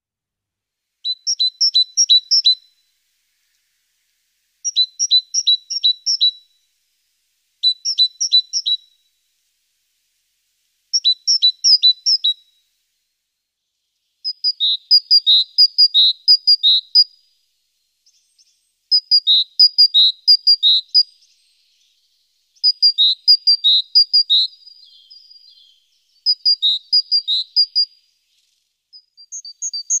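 A small songbird singing in repeated short phrases of quick, high chirping notes. It gives about nine phrases, each a second or two long, with brief pauses between them.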